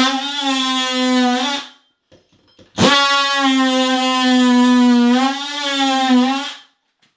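Cordless oscillating multi-tool plunge-cutting into the shower wallboard, a steady high buzz with a slightly wavering pitch. It runs for under two seconds, stops for about a second, then runs again for about four seconds before stopping.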